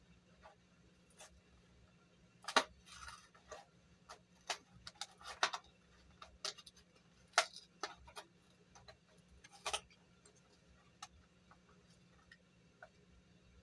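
Hot Wheels blister pack being opened by hand: the clear plastic blister crackles and clicks as the cardboard backing is peeled and torn away. The clicks come irregularly, bunched from about two to ten seconds in, with a brief rustle around three seconds.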